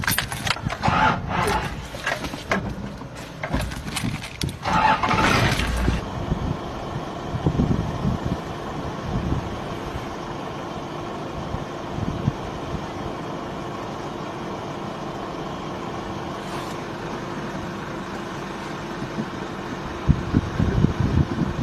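A vehicle engine idling with a steady hum, after about six seconds of louder, irregular noise at the start.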